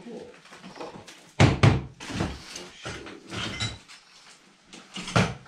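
Heavy thuds and knocks: two loud ones about a second and a half in, smaller knocks and rattles after them, and another loud thud near the end.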